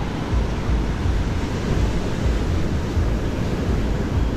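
Wind buffeting the microphone in uneven low gusts over a steady wash of ocean surf breaking on a sandy beach.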